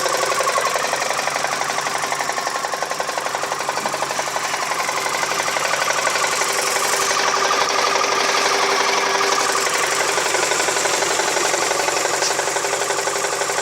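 Mazda 6 2.3-litre four-cylinder engine running with a fast, steady ticking knock, like a bicycle ratchet. The owner finds it unlike a rod-bearing or timing-chain knock and places it somewhere under the valve cover, in the valvetrain.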